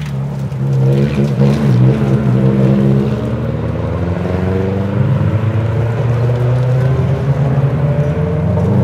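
Rally car engines at full throttle on a gravel stage, pitch rising and falling as the cars accelerate and shift.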